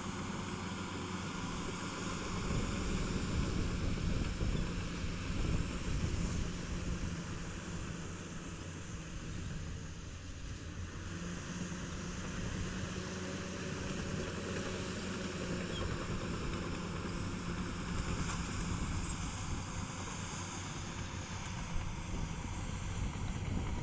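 Komatsu D65 bulldozer's diesel engine running steadily, easing off slightly near the middle.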